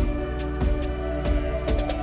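Background music with a steady beat: a deep kick drum repeating under held synth-like tones.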